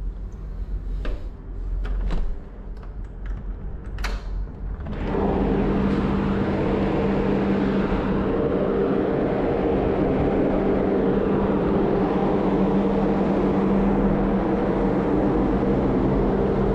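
Clicks and knocks of a ship's interior door being unlatched and pushed open. About five seconds in, a loud, steady machinery hum takes over, with constant low droning tones: the ship's engines and ventilation heard out on deck.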